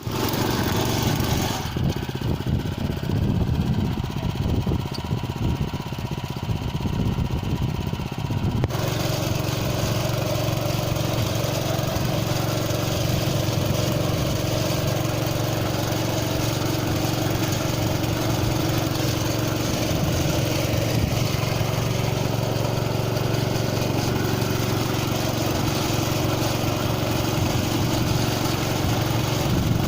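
Small engine of a single-wheel motorised plough running steadily. Its sound changes abruptly about two seconds in and again near nine seconds, then holds steady.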